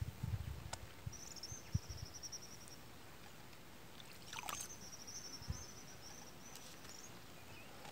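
Faint outdoor ambience with a high, rapid trill heard twice: briefly about a second in, then longer from about four seconds. A few low thuds come near the start.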